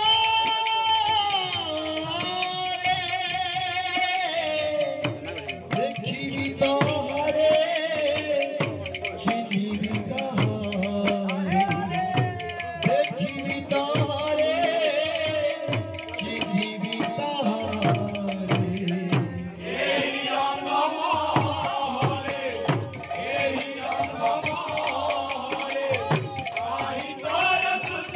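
Odia kirtan devotional music: a held, wavering melody over fast, steady percussion with a rattling, jingling edge. The texture thins briefly a little before two-thirds of the way in, then carries on.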